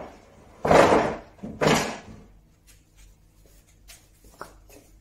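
Two heavy wooden knocks about a second apart, each with a short ringing tail: the mahogany sleigh bed's end section being knocked and shifted on the workbench as it is worked loose, followed by a few faint taps.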